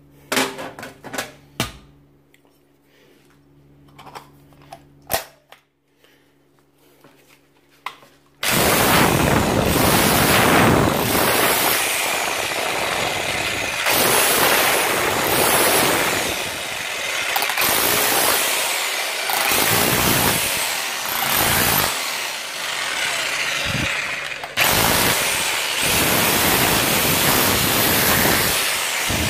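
A few clicks and knocks as a pointed chisel is fitted into a Parkside PBH 1500 F6 SDS-Plus hammer drill. About eight seconds in the drill starts up loud in chisel mode, its pneumatic hammer mechanism battering the pointed chisel into the wall, with brief dips as the pressure eases.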